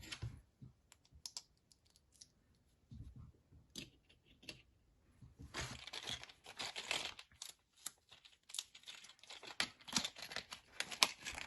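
Small plastic bag crinkling and tearing, with light clicks of small plastic parts being handled. First a few scattered clicks, then steady rustling from about halfway.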